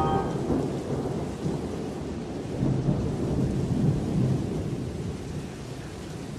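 Steady rain with low thunder rumbling, the rumble swelling twice in the middle while the whole storm slowly fades.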